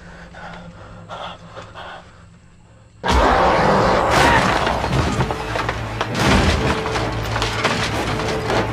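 Horror film soundtrack: quiet, tense ambience, then about three seconds in a sudden loud burst of crashing noise with repeated thuds and cracks, mixed with music.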